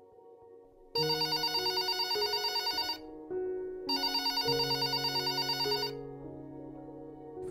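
Panasonic office desk telephone ringing twice with a fast-trilling electronic ring, each ring about two seconds long, over soft sustained background music.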